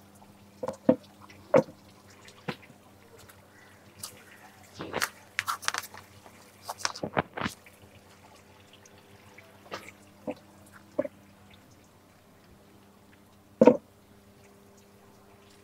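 Scattered light knocks and taps, with a cluster of rustling a few seconds in, as insect netting over a garden frame is handled. A faint steady low hum runs underneath.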